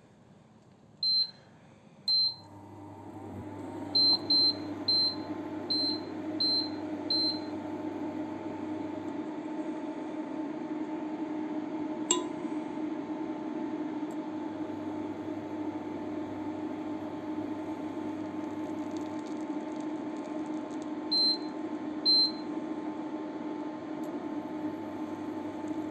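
Microwave oven: a quick run of keypad beeps, then it starts running with a steady hum that continues, a single click about twelve seconds in, and two more beeps near the end.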